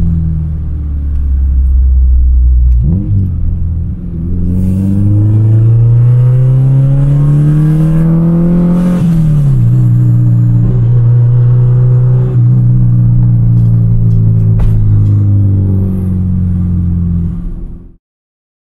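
Honda Integra DC2's four-cylinder engine heard from inside the cabin, pulling up in pitch under acceleration for several seconds. Its note drops sharply at a gear change, then holds steady at cruise before cutting off near the end.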